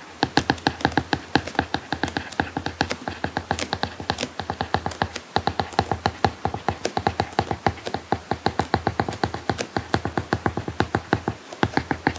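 Apple Pencil tip tapping and scratching on an iPad Pro's paperlike matte screen protector during handwriting: a quick, steady run of small clicks.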